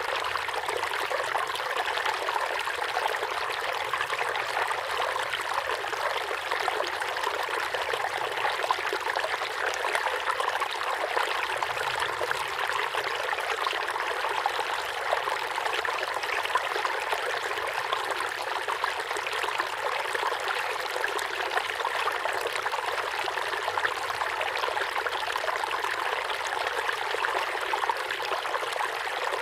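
A river flowing steadily: an even, unbroken rush of water with little deep rumble.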